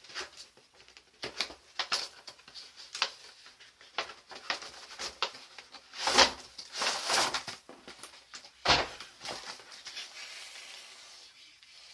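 Packaging of a small RC toy being handled and opened: a run of rustles and light clicks, a longer rustle about six seconds in, and a sharp knock a little later.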